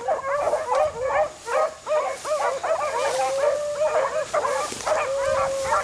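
A pack of beagles baying in overlapping yelps while running a rabbit's scent trail, with a longer drawn-out note near the end.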